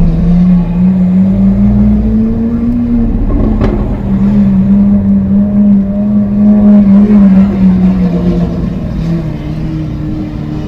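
Lamborghini Aventador SV's 6.5-litre V12 through a Capristo exhaust, running at low revs with its pitch slowly rising and falling. About three and a half seconds in there is one sharp crack as the pitch dips.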